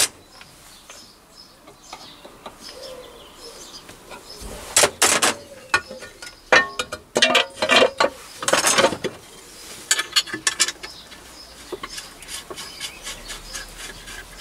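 Metal-on-metal clicks and clinks of tooling being handled and fitted on a Myford ML7 lathe headstock as the boring head is set on its drawbar. Quiet at first, then clusters of sharp clicks and rattles from about five seconds in to about eleven.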